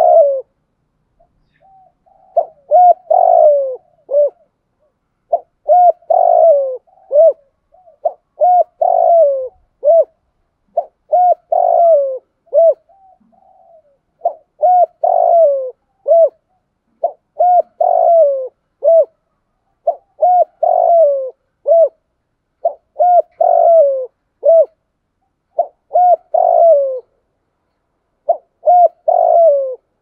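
Spotted dove cooing: a phrase of a few short, low, hooked coo notes, repeated every two to three seconds.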